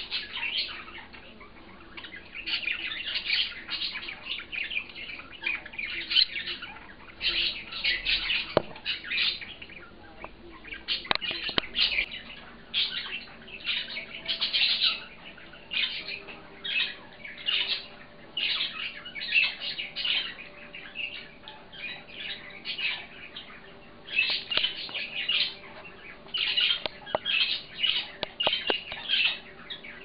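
Several budgerigars chirping and chattering: a steady stream of short, high calls in quick succession, with a few sharp clicks about a third of the way in.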